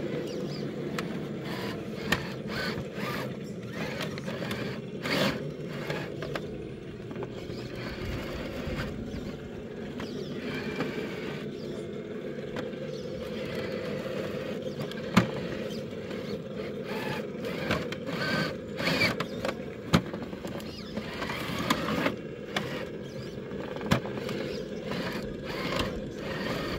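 1/10 scale RC rock crawler's electric motor and gears whining steadily as it crawls up a tight rock crack, with frequent sharp clicks and knocks of its tyres and chassis against the rock.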